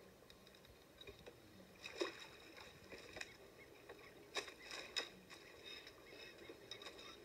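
Faint splashing and sloshing of shallow pond water, with a few sharp splashes about two seconds in and again around four and five seconds in.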